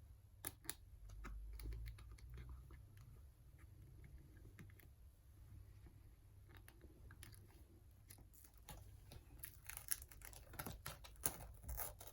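Faint, scattered small clicks and crackles of a smashed iPad digitizer being lifted off the tablet's casing, cracked glass and tool on the frame. The clicks come thicker near the end.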